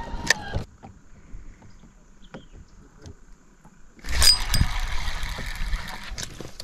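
Electric bow-mounted trolling motor whining steadily, then cutting off under a second in. A few faint clicks follow, and about four seconds in a louder rushing noise starts abruptly and eases off about two seconds later.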